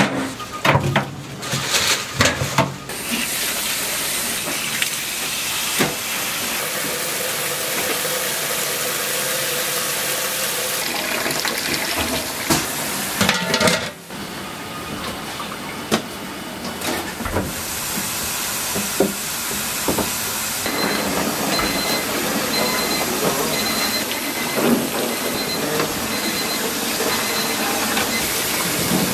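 Steady hiss of water and steam around a large aluminium stockpot in a commercial kitchen. Bones knock into the pot in the first few seconds and the metal lid clanks on about 14 seconds in. A faint repeated beep sounds through the second half.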